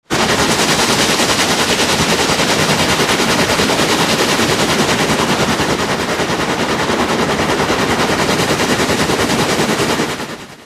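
Loud, harsh noise with a fast, even rattle, cutting in suddenly and fading out near the end: a heavily processed sound effect.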